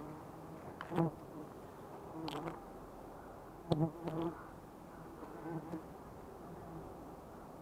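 A swarm of wild honey bees buzzing steadily around their nest while being smoked with a coconut-husk torch. A few sharp clicks break through the hum.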